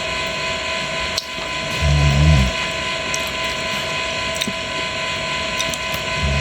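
Fish frying in hot oil: a steady sizzle with scattered sharp pops. Two short low sounds come about two seconds in and again near the end.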